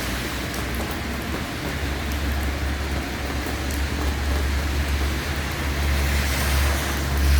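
Steady rain falling, with a low rumble underneath that builds through the second half.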